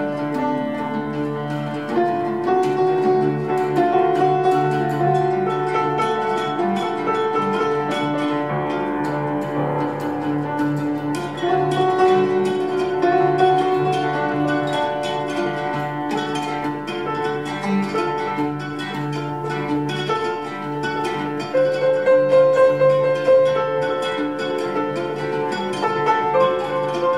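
Oud and grand piano playing together in a duet: many quick plucked oud notes over sustained piano tones, swelling a little louder near the end.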